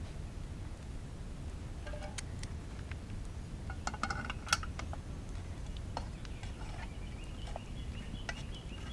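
Scattered light metallic clinks and taps of utensils against cookware, with a small flurry near the middle, over a steady low rumble.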